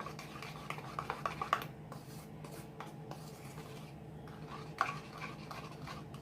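A spoon stirring a thick honey syrup in a container, with a few light clinks against the side around a second in and one more near five seconds.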